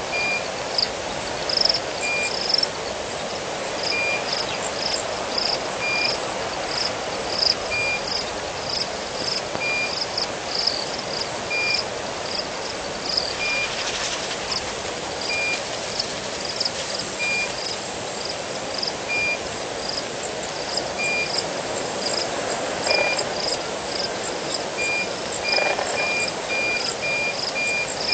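Frogs and insects calling at a waterhole: many quick high chirps over a steady hiss, with one short, even note repeating about every two seconds that speeds up to several a second near the end.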